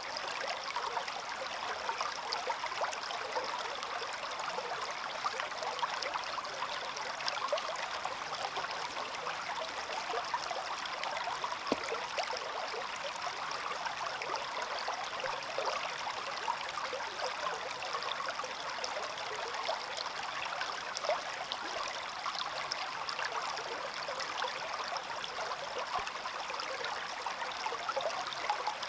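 A stream running steadily: an even rush of water with a dense flicker of small splashes, and no deep rumble.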